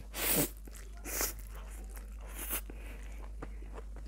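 Close-miked eating of chow mein noodles: a loud burst of mouth noise as the forkful goes in just after the start, then two shorter chewing sounds about a second and two and a half seconds in.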